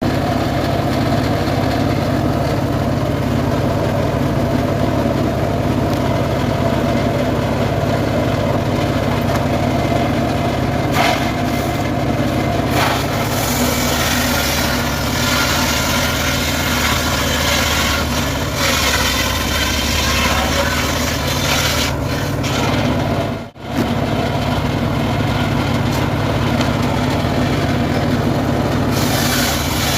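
Engine-driven homemade 'srekel' sawmill running steadily while sawing sengon wood. A high hiss grows stronger about 13 seconds in, and the sound drops out for an instant about three quarters of the way through.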